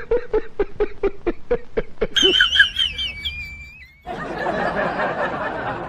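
Someone snickering: a quick run of short, even 'heh-heh' pulses for about two seconds. Then comes a brief high wavering squeal, and for the last two seconds a steady rushing noise.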